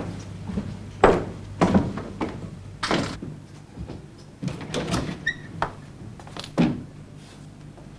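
A door being opened and shut: a string of separate knocks and thuds over several seconds.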